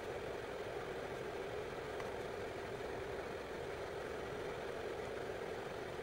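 Vevor 5 kW diesel air heater's blower fan running steadily in its shutdown cool-down, a constant whirring hum drawing about 15 W.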